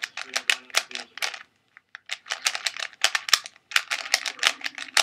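DIY Type A plastic speedcube being turned quickly by hand: rapid clacking of its layers, with a brief pause about a second and a half in.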